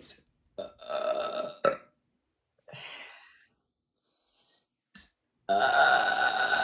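A woman belching from a stomach full of carbonated sparkling water. One burp starts about half a second in and lasts over a second; a longer, louder one starts near the end.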